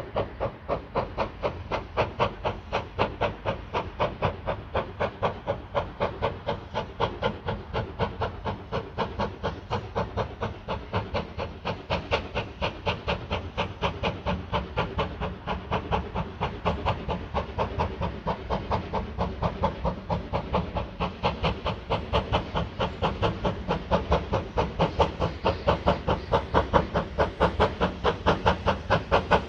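A Baldwin-built USATC S160 2-8-0 steam locomotive working hard up a gradient, its two-cylinder exhaust beating in a quick, even chuffing rhythm that grows louder as it approaches.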